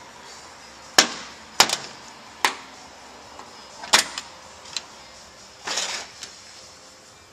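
Tools being handled and set down on a hard floor: about half a dozen separate sharp clicks and knocks, with a short scrape near the end.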